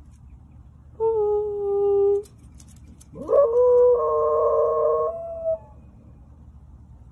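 A dog howling twice: a short howl held at a steady pitch about a second in, then a longer howl that slides up at the start and then holds.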